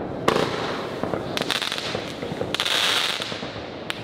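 Fireworks going off close by: a sharp bang about a quarter of a second in, a quick cluster of pops around a second and a half, a stretch of hiss near three seconds, and another crack near the end.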